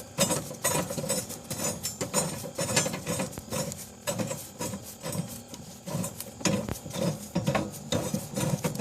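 Socket wrench turning a mower blade bolt loose: a run of irregular metallic clicks and clinks as the bolt is unscrewed.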